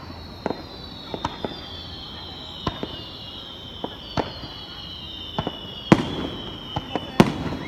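Fireworks bursting overhead: irregular sharp bangs and pops, the loudest about six and seven seconds in, with several high whistling tones slowly falling in pitch throughout.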